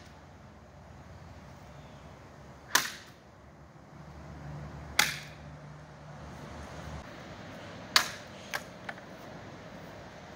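Sword blade striking and slicing through an upright bamboo stalk: three sharp cracks a few seconds apart, the third followed quickly by two fainter clicks.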